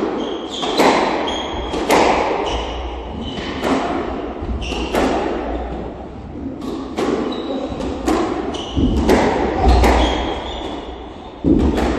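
Squash rally: the ball smacks off the rackets and the walls about once a second, each hit echoing around the court, with short high squeaks of shoes on the wooden floor between the shots.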